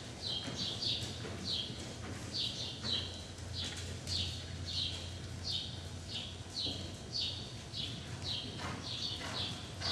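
A horse working under saddle on sand footing, with soft hoofbeats and a short, high, downward-sliding chirp repeating about twice a second. A steady low hum sits underneath.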